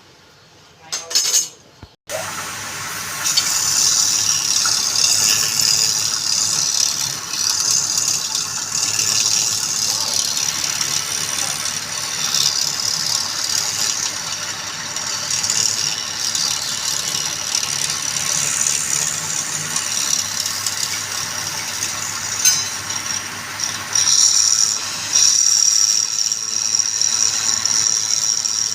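Wood lathe running with a turning tool cutting into the spinning wood: a steady scraping, hissing cut over a low motor hum. It starts abruptly about two seconds in, just after a brief short sound.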